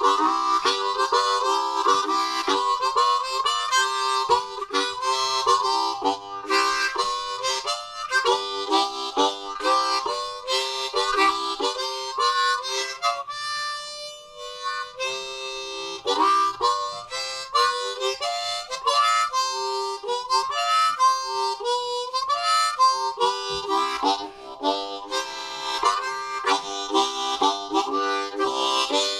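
Harmonica playing a blues tune: quick rhythmic chords and single notes, a long held note about fourteen seconds in, and bent notes that slide in pitch a few seconds later.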